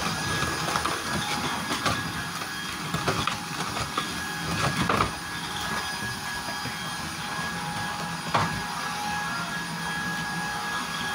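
A cardboard Funko Pop box handled close to the microphone: fingers rubbing and gripping it, with a few short scrapes and knocks, the loudest about five seconds in and another near eight seconds. Under it runs a steady background hum.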